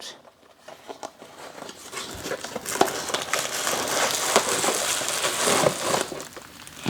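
Packaging crinkling and rustling as an item is pulled out of its box, with small clicks; it starts after a second or two of quiet.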